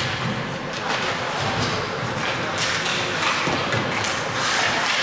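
Ice hockey play in a rink: skates scraping the ice in repeated short hissing strokes, with scattered thuds and taps of sticks, puck and boards.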